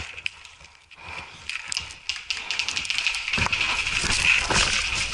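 Hurried footsteps on the forest floor, crunching twigs and litter, with clothing and gear rustling; the steps get heavier and more regular from about three and a half seconds in.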